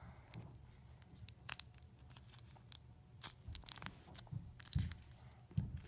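A handmade paper squishy squeezed by hand: irregular crinkling and crackling of the paper, with a couple of dull handling thumps near the end.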